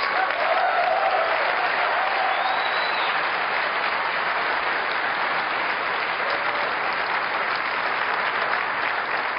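Large auditorium audience applauding steadily in response to a product announcement, with a cheer and a short whistle in the first few seconds, easing off slightly toward the end.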